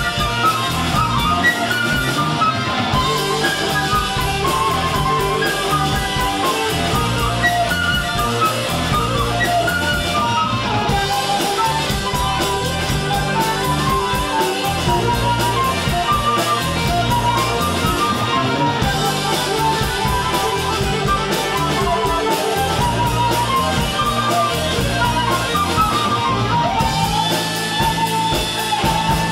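Rock music with electric guitar and a steady beat, no singing.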